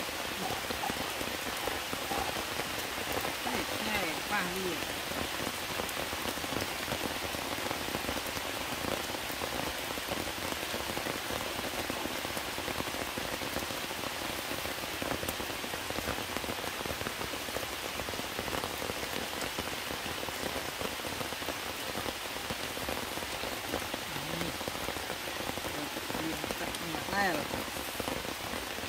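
Heavy rain falling steadily, a constant even hiss with no let-up.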